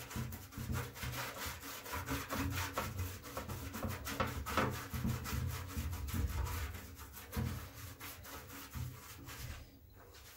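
Pastry brush scraping back and forth over a metal baking tray as it is greased, in quick repeated strokes that fade out near the end.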